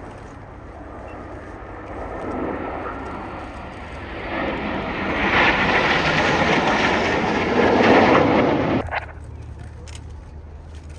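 Red Arrows BAE Hawk jets flying past in formation, their jet engines growing louder from a couple of seconds in to a loud rushing peak, then cutting off abruptly near the end.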